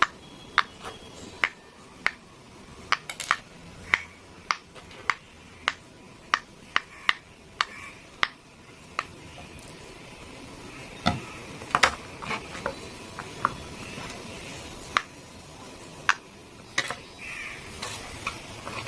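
Silicone pop-it fidget toy's bubbles being pressed in from the back side, each giving a sharp little pop. The pops come one at a time at uneven spacing, roughly two a second.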